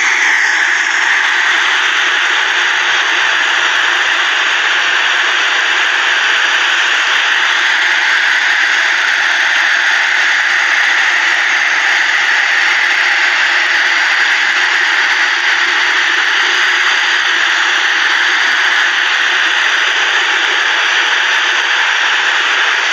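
Muddy floodwater rushing in a flash-flooded stream: a loud, steady rush of churning water.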